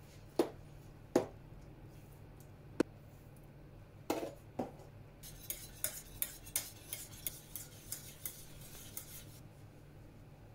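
A metal spoon knocks a few times against a stainless steel pot, then a wire whisk clatters quickly against the pot's sides and bottom for several seconds as it stirs the milk mixture, stopping shortly before the end.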